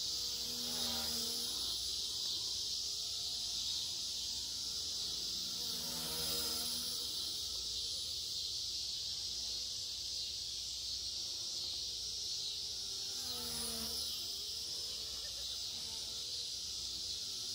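Blade mCP X BL2 micro RC helicopter in flight: a steady, high-pitched buzz from its motors and rotors, swelling three times as it sweeps close.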